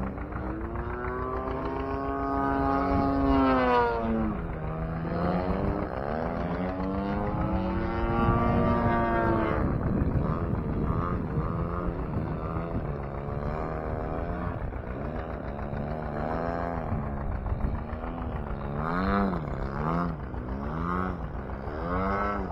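Radio-controlled aerobatic model airplane's engine and propeller, the pitch rising and falling as the plane swoops past and throttles through its manoeuvres. In the second half the pitch wavers up and down more quickly.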